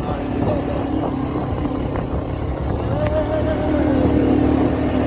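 ATV engine running steadily over a low rumble, its note rising a little and growing louder about halfway through.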